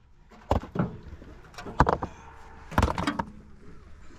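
About five sharp knocks at uneven intervals over a low background hum.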